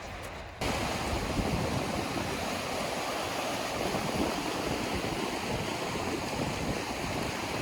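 Steady rushing of a creek's flowing water, cutting in abruptly about half a second in after a brief low wind rumble.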